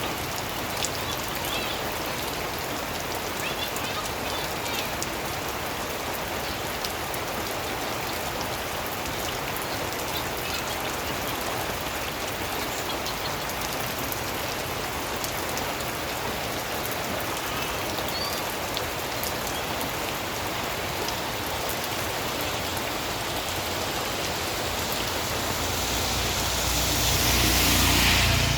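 Steady rain falling and pattering on surfaces, with single drops ticking through it. Near the end a louder hiss with a low rumble swells up and then fades.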